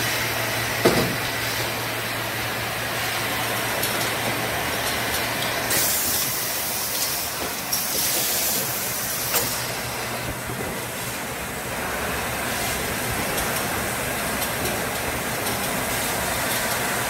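Damark shrink-wrap sealer and shrink tunnel running, a steady hum with rushing air noise. A knock comes about a second in, two short bursts of hissing at around six and eight seconds, and a click just after nine seconds.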